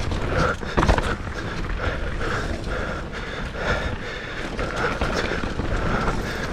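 Mountain bike running down a rough dirt bike-park trail: tyres rolling over the ground and the chain and frame rattling over bumps, with a sharp knock about a second in.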